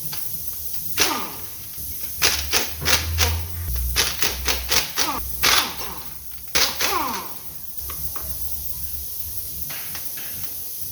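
Metal tools and engine parts knocking and clanking against each other during an engine teardown: an irregular run of sharp knocks, several with a short ringing tail, bunched through the first two-thirds and then stopping.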